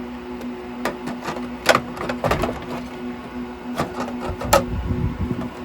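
Sharp clicks and knocks of the server's covers and internal parts being handled and fitted back into the IBM x3650 M4 chassis, about five separate strikes, with a low rumble of handling near the end, over a steady hum.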